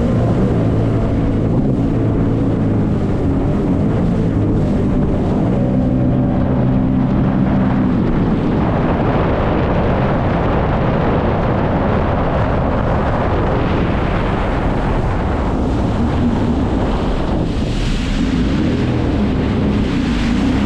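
Jet ski engine running, with wind buffeting the microphone. The engine's steady pitch is clear for the first several seconds. From about eight seconds in, a rush of wind and water mostly covers it, and the engine tone comes back near the end.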